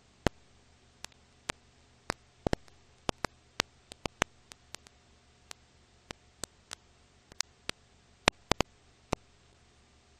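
Surface crackle of an old film soundtrack: sharp clicks and pops at uneven intervals, two or three a second, over a faint steady hiss and low hum.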